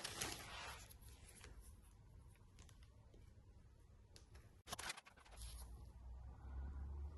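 Faint rustling and light clicking of objects being handled: a short rustle at the start and another about five seconds in, with a low hum coming in after it.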